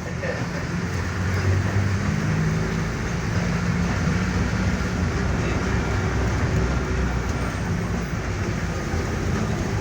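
Mercedes-Benz OF-1418 bus diesel engine running with the bus under way, its low tone shifting up and down in pitch a few times, heard from inside the bus.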